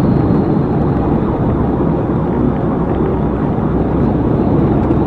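Steady road noise inside a patrol car driving at highway speed: engine, tyre and wind noise running evenly, heaviest at the low end.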